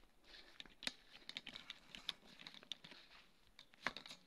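Footsteps over dry garden ground, heard as faint, irregular crackles and clicks.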